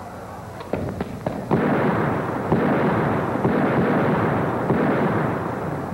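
Staged musket fire: a few sharp cracks, then about a second and a half in, a sudden loud, dense crackling din of shots.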